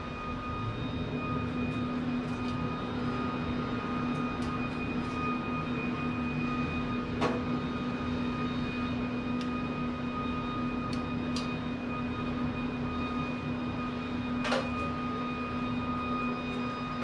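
Steady electric hum of a Pit Boss Pro Series upright pellet smoker's fan running, with a couple of short knocks as the smoker's door is handled.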